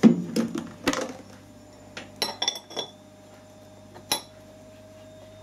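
Steel bearing outer race being set by hand into its cast bearing housing. A few dull knocks come first, then a run of light metal-on-metal clinks with a brief ringing note about two seconds in, and one more clink near the end.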